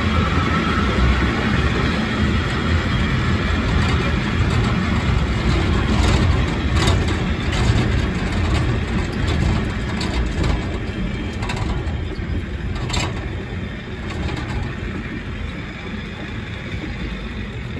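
Water-powered cliff railway car running on its rails: a steady low rumble with a few short clicks or squeaks, gradually getting quieter through the second half.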